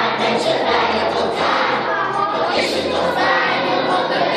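A group of children singing a Christmas song together in chorus, with an instrumental accompaniment underneath.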